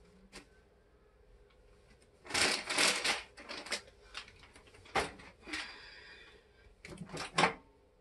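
Plastic cereal bag crinkling and dry cereal being poured and handled over a bowl, in several bursts of rustling, with one sharp knock about halfway through.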